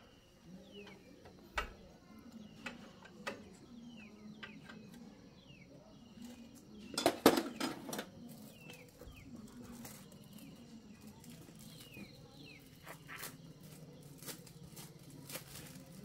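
Metal tools and small engine parts clinking and tapping as they are handled, with a louder burst of clatter about seven seconds in from a metal toolbox being rummaged. Birds chirp in the background with short falling notes.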